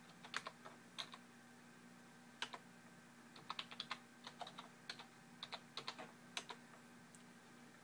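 Computer keyboard typing: faint keystrokes in irregular short runs, as when entering login details, over a low steady hum.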